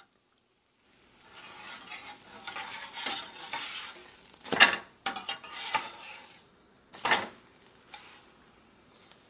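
A pancake sizzling in a stainless steel frying pan while a metal spatula scrapes and clanks against the pan, sliding under the pancake. The loudest scrapes come about halfway through and again about seven seconds in.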